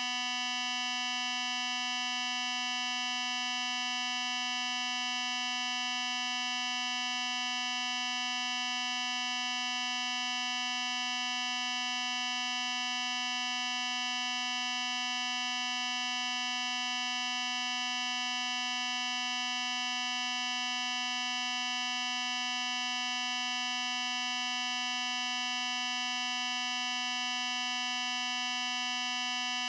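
A steady electronic buzzing tone from a synthesized sound effect, held at one pitch without any change.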